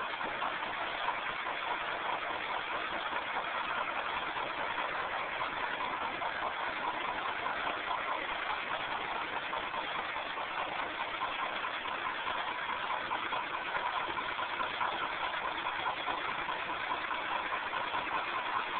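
Engine of a 1949 cable-blade Caterpillar D8 crawler tractor running steadily at an even speed.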